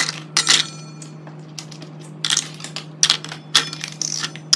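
Hard plastic breast pump parts (flanges, valves, bottles and caps) dropped one after another into a stainless steel bowl, making a string of irregular clattering knocks over a steady low hum.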